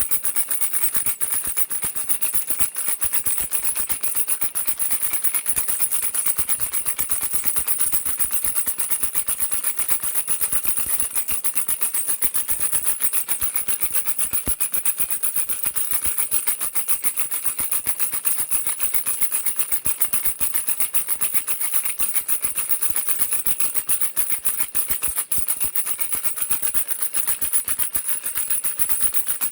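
Baby rattle shaken without pause, a fast, dense clatter of small beads that keeps an even level.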